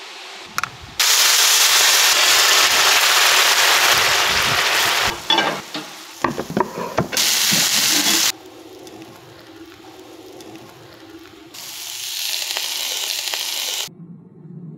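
Hot cast iron pans of baked mantı sizzling loudly in three separate stretches that start and stop abruptly, the longest about four seconds near the start. A few clicks and knocks come in between.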